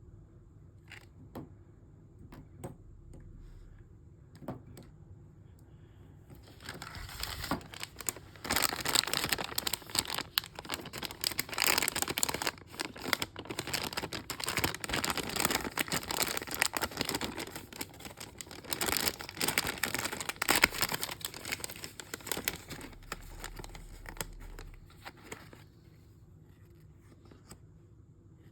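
A few light clicks and taps, then from about six seconds in a long stretch of dense crinkling of a mystery bag's packaging being handled and torn open, fading out a few seconds before the end.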